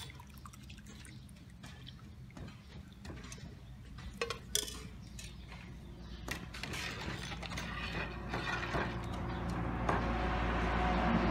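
A metal ladle and strainer clinking against a large aluminium pot while scooping and stirring liquid, with a sharper clink about four and a half seconds in. The bubbling of the boiling pot grows steadily louder through the second half.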